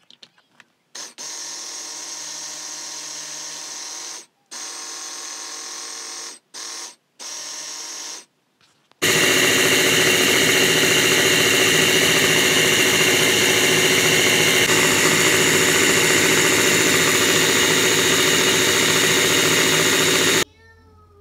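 Small electric spice grinder's motor run in several short pulses, then continuously and much louder for about eleven seconds before cutting off, grinding roasted chillies, coriander and lentils into sambar powder. A few light plastic clicks come first as the lid goes on.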